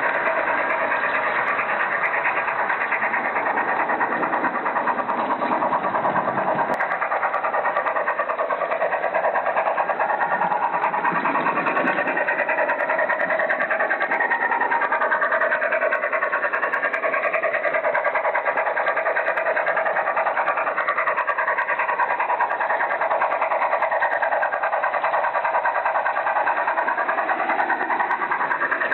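Märklin model train running on its track, heard close from a camera carried on the train: a steady electric-motor and gear whine mixed with wheel and rail noise, its pitch wandering up and down. A lower rumble underneath drops away about seven seconds in.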